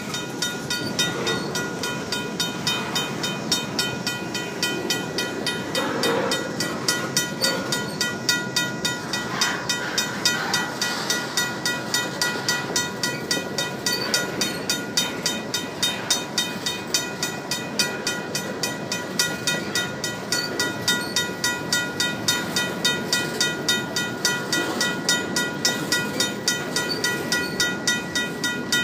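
Empty covered grain hopper cars rolling past close by, their wheels rumbling and clacking on the rails. Over it a RACO mechanical crossing bell rings steadily at about three strikes a second.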